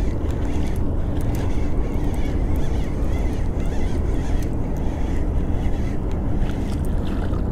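Wind buffeting the microphone as a steady low rumble, with faint scattered clicks from a baitcasting reel being cranked.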